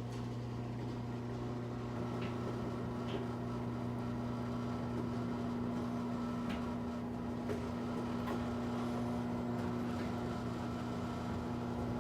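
Stanley chain-and-cable-drive garage door opener running as it opens the door: a quiet, steady motor hum with a few faint ticks.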